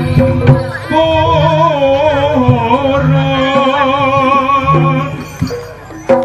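Jaranan gamelan music: regular low drum strokes under steady ringing pitched tones, joined about a second in by a high wavering melody that fades out near the end.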